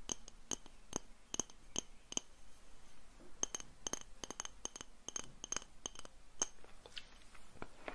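Light tapping on a glass container: a long series of sharp clinks, a few each second at an uneven pace, each with a short glassy ring, pausing briefly about three seconds in.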